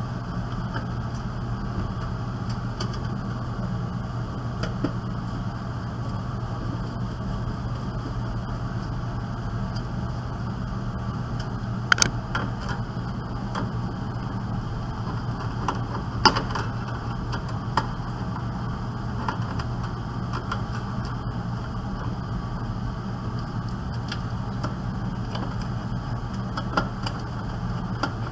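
A steady low mechanical hum throughout, with scattered sharp metallic clicks and taps from a screwdriver and screws as a desktop computer's motherboard is unscrewed from its case, the loudest about twelve and sixteen seconds in.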